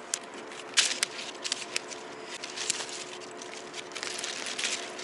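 Leaves rustling and small twigs crackling as a branch is snapped off a tree, with several sharp snaps, the loudest about a second in.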